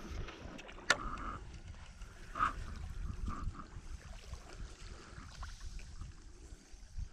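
Steady low wind rumble on the microphone over gentle water lapping along the shoreline, with a single sharp click about a second in.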